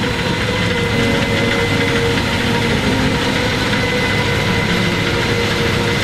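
Harvest machinery's engine running steadily under load, with a steady whine over the engine noise.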